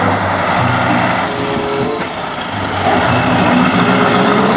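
Heavy truck engine running steadily, with a burst of hiss about two and a half seconds in.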